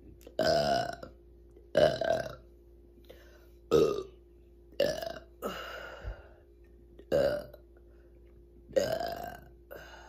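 A woman burping on command: about six loud, deep burps in a row, one every second or two, some quieter and shorter than others.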